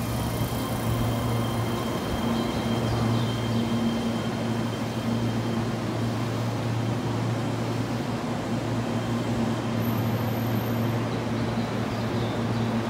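Keihan 3000 series electric train running slowly alongside the platform as it brakes to a stop, its wheels rumbling on the rails under a steady low hum.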